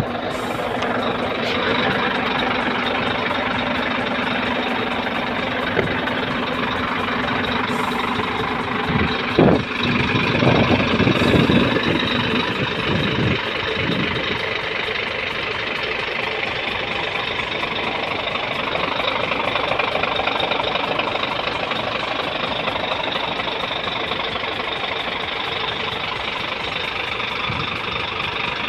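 Scania P410 truck's 13-litre inline-six diesel idling steadily, with a few thumps and rustles around ten seconds in.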